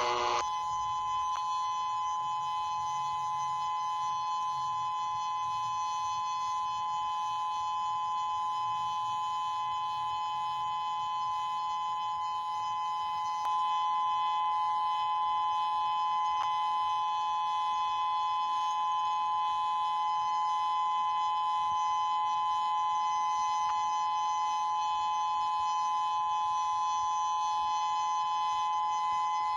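Dual-tone outdoor tornado warning siren, a Federal Signal 508, sounding a steady alert signal: two tones held at full pitch without wavering, a little louder from about halfway through.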